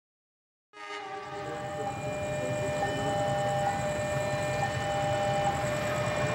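A CC 201 diesel-electric locomotive approaching with its train. It comes in suddenly about a second in, and a low engine rumble grows steadily louder under several steady high tones.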